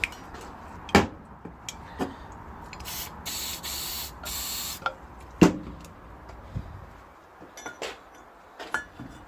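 Aerosol can of WD-40 hissing in three short sprays about three to five seconds in, penetrating oil going onto a corroded, stuck valve. Sharp metal clicks and knocks come before and after, the loudest just after the spraying.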